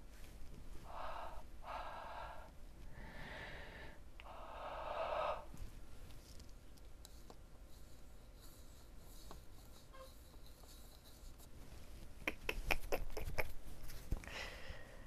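Close-miked breathy exhales through an open mouth: four airy huffs in the first five seconds. A quick run of sharp clicks follows near the end.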